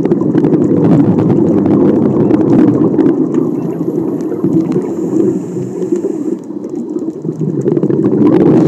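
Muffled underwater rumble with crackling, picked up by a camera in a waterproof housing on a scuba dive. It dips briefly about six to seven seconds in.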